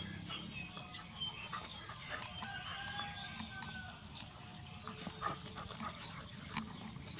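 Two dogs play-fighting, with short dog vocalizations and a few brief rising and falling calls, over a steady low background rumble.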